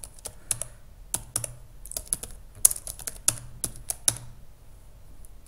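Typing on a computer keyboard: irregular keystrokes clicking at an uneven pace, growing sparse near the end.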